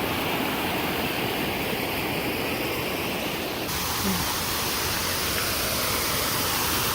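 Steady rush of falling water from a garden waterfall. The hiss turns brighter about three and a half seconds in.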